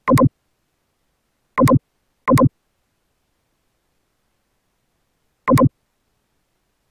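Four computer mouse clicks, each a quick double click of press and release: one at the start, two about a second and a half later in close succession, and one more about three seconds after that.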